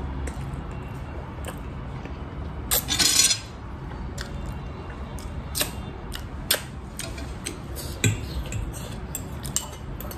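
Close-up eating sounds of spicy instant ramen noodles: chewing, a loud slurp about three seconds in, and scattered sharp clinks of a fork and spoon against a ceramic plate and a small glass bowl.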